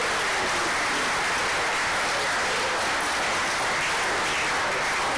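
Audience applauding: a steady, dense stretch of clapping that keeps up at an even level throughout.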